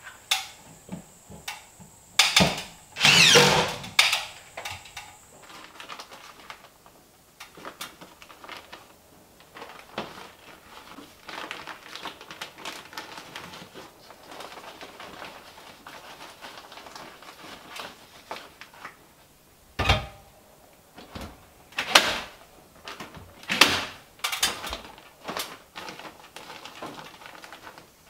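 Cordless drill driving a screw into wood trim, a short burst of motor whine about two to four seconds in. Later, a staple gun fixing the paper facing of fiberglass insulation batts, with several sharp snaps over the last eight seconds.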